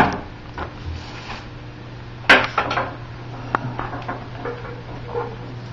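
Knocks and clatter of a wooden chair being worked as its glued joints are fitted together: a sharp knock at the start and another about two seconds in, with lighter taps and rattles between and after.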